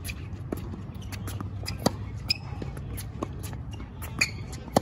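Tennis balls being hit with racquets in a baseline rally on a hard court: sharp pops of ball on strings, loudest about two seconds in and just before the end, with fainter hits and bounces between. Short sneaker squeaks on the court surface come twice as the player moves.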